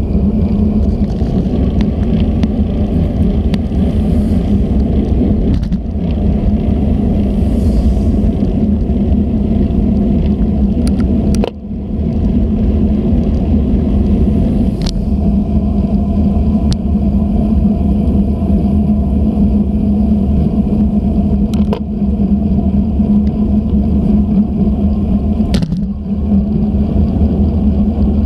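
Steady wind and road rumble on a GoPro carried on a moving road bike. A few sharp knocks break through.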